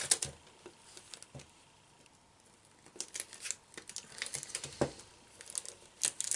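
Plastic film membrane crinkling and crackling as it is stretched taut over the mouth of a small tin can. The crackles come in scattered bursts, pause about a second and a half in, then pick up again with one sharper snap near the end.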